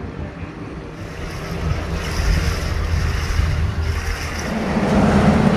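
Boat under way: a steady low engine hum under rushing water and wind buffeting the microphone, growing louder toward the end.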